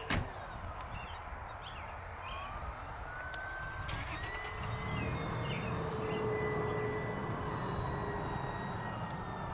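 Electric motor and propeller of an RC Cessna 182 model plane whining in flight. The whine rises in pitch as the throttle comes up, about two to four seconds in, then holds steady. A sharp click right at the start.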